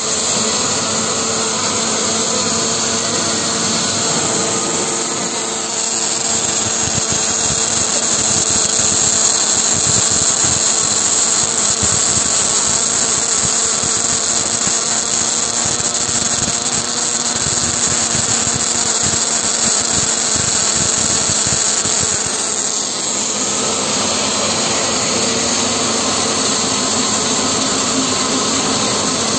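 Robotic wire-fed (MIG/MAG) welding arc crackling and hissing steadily as the torch lays a bead around a flange joint on a slowly rotating steel pipe.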